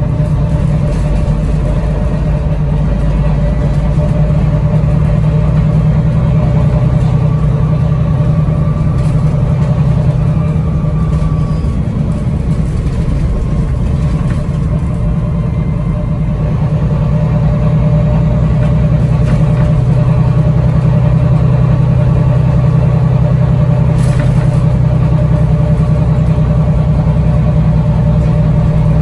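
Bus engine running as the bus drives, heard from inside the passenger saloon as a steady low drone. The engine note eases about twelve seconds in and builds again a few seconds later.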